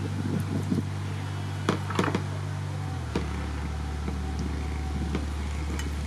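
A steady low hum, which shifts lower about three seconds in, under a few sharp clicks and knocks about two seconds in from handling raw octopus over a plate and cutting it on a wooden board.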